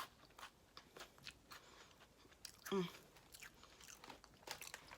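Potato chips being bitten and chewed close to the microphone: a run of short, crisp crunches, with a brief sound of the voice about three seconds in.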